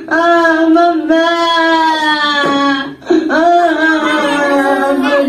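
A single voice singing long, held notes, with short slides between phrases and a brief break about three seconds in.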